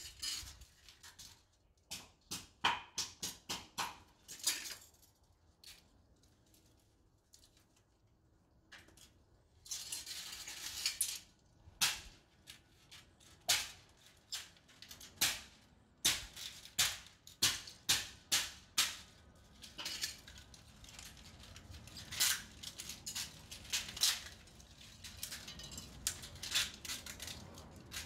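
Smashed DJI FPV drone being pulled and snapped apart by hand: an irregular run of sharp plastic cracks and clicks, with a longer scraping rustle about ten seconds in.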